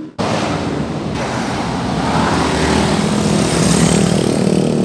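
Wind rushing over the microphone while moving along a road, mixed with the steady running of nearby motorcycle and pickup truck engines.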